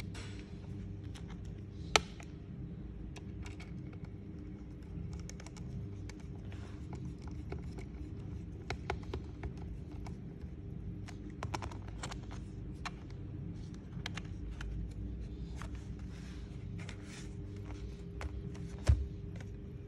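Scattered light clicks and taps of hard parts being handled on a work surface, over a steady low hum, with two sharp knocks: one about two seconds in and one near the end.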